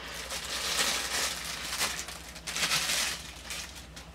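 Packaging rustling and crinkling in irregular bursts as the charger is handled and unwrapped, dying down near the end.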